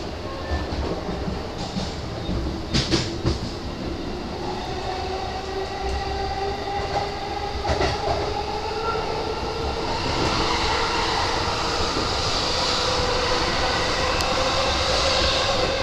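E233-series electric train running, heard inside the lead car: the traction motors' whine slowly rises in pitch as it gathers speed, and the wheels click over rail joints a few times. The running noise grows louder and more hissy in the second half.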